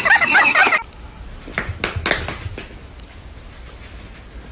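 Loud music with short warbling notes cuts off abruptly under a second in. Quiet room tone with a low hum follows, and a few faint short taps come about two seconds in.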